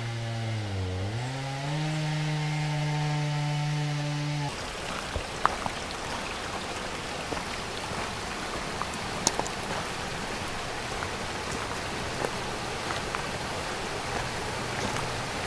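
A chainsaw running at high speed, its pitch dipping briefly about a second in and recovering, then cutting off suddenly a few seconds in. After it comes a steady trickle and splash of water running down a small rocky cascade, with scattered drips.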